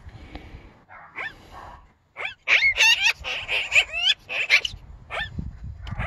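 Magpie calling: a quick run of short, whining calls that slide up and down in pitch, starting about two seconds in after a quieter opening.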